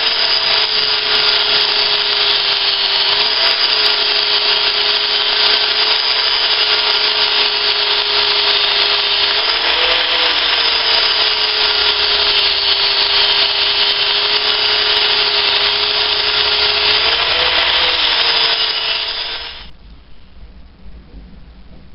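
Electric angle grinder grinding weld spots and surface rust off the body of a 7-inch engineer's vise. Loud steady grinding with a motor hum underneath that rises briefly in pitch three times, then cuts off suddenly near the end.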